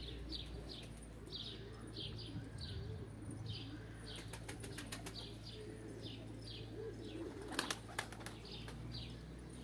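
A bird chirping over and over in short high notes, about two a second, with a faint low cooing of pigeons underneath. A few sharp claps sound close together about three-quarters of the way through.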